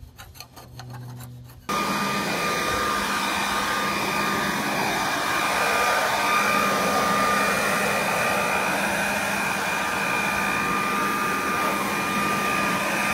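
Short scraping strokes of a putty knife on a table edge. Then, about two seconds in, a handheld leaf blower takes over, running steadily: a loud rush of air with a high whine.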